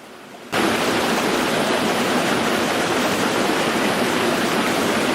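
Steady rush of fast-flowing water, cutting in abruptly about half a second in.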